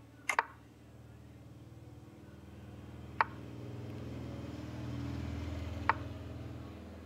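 Chess app move sounds, short sharp clicks: a quick double click just after the start, one about three seconds in as a pawn is moved, and one near six seconds as castling is played. Under them a low rumble swells through the middle and fades.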